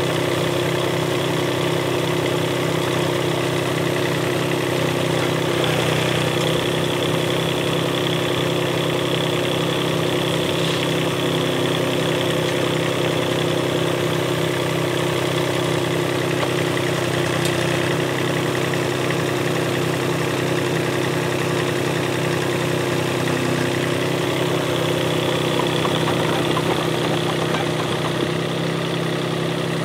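Yuchai YC15-7 mini excavator's diesel engine running at a steady speed while the boom and bucket dig and lift from a dirt pile.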